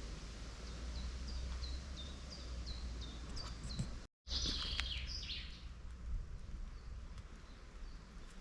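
Small forest birds calling: a run of short, high chirps about three a second, then, after a brief break in the sound about four seconds in, a louder, busier burst of song. A steady low rumble lies underneath.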